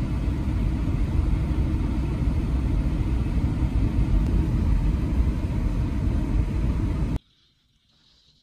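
Steady low rumble of a car driving on a paved road, heard from inside the cabin: engine and tyre noise. It cuts off suddenly near the end, leaving near silence.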